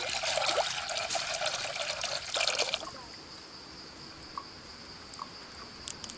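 A stream of water pours and splashes into a clay pot, stopping about three seconds in. After that a steady high-pitched whine remains, with a few faint clicks.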